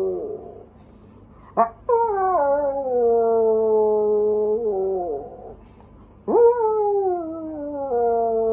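A man imitating a dog's howl with his voice. There is a short yelp, then two long howls that each slide downward in pitch, lasting about three seconds apiece.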